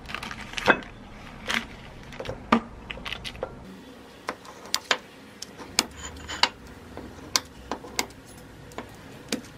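Kitchen scissors and a ceramic plate clicking and clattering on a stone countertop as a cream bun is unwrapped from its paper and cut: an irregular string of sharp taps and clicks, the loudest in the first second.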